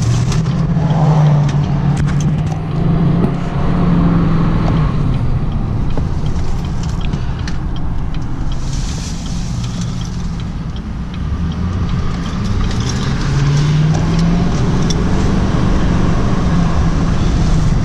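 2019 Duramax L5P 6.6-litre turbo-diesel V8 heard from inside the pickup's cab, accelerating from a near stop to about 40 mph. Its pitch climbs near the start and again about three-quarters of the way through as it pulls through the gears.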